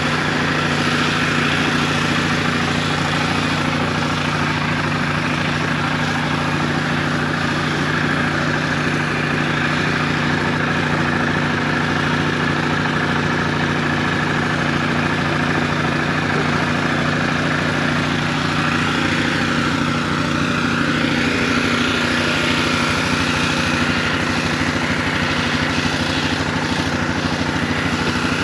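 Gas pressure washer's small engine running steadily, with the hiss of its water jet spraying the four-wheeler.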